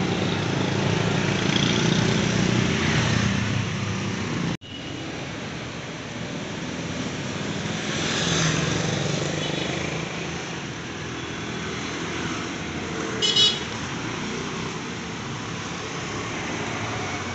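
Street traffic noise: a steady wash of passing cars and motorbikes, louder in the first four seconds and breaking off for an instant at about four and a half seconds. A short high-pitched beep comes about thirteen seconds in.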